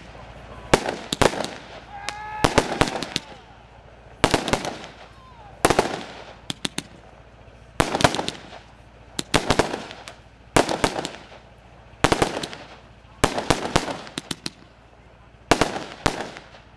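Aerial fireworks bursting in a steady series: a sharp bang roughly every second and a half, each followed by a brief crackle.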